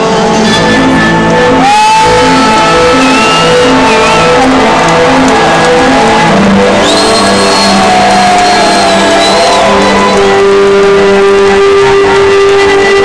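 Loud live concert music over a stadium sound system, recorded from within the crowd: a melodic passage with repeating notes under held, gliding melody lines.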